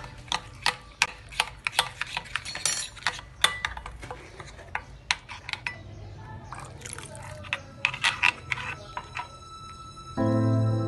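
Metal spoon clinking and scraping against a glass bowl while stirring a spice marinade, about three clinks a second, thinning out to a few clinks about halfway through. Background music starts near the end.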